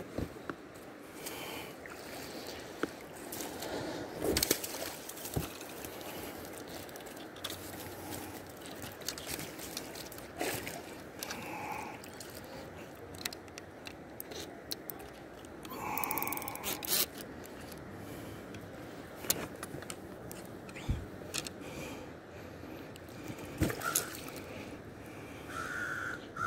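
Handling noises aboard an inflatable kayak: scattered knocks and scrapes against the boat over a steady wash of river water, with a few short bird calls, the last near the end.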